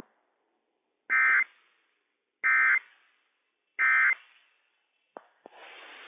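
Three short bursts of EAS SAME digital data tones, a harsh buzzing warble, about 1.3 seconds apart: the end-of-message code that closes a Required Weekly Test on a NOAA Weather Radio broadcast. Two faint clicks near the end, then a low hiss.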